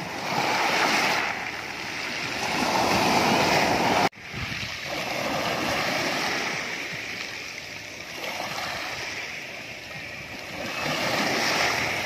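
Small sea waves breaking on a pebble beach, the surf washing up over the stones and drawing back, swelling and easing about four times. The sound cuts out abruptly for a moment about four seconds in.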